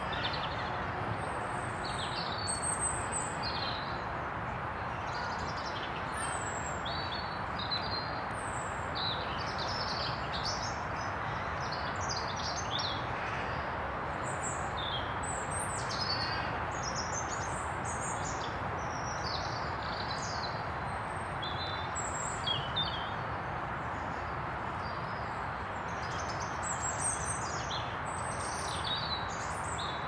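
Birds chirping and twittering: many short, high calls scattered throughout, over a steady background noise.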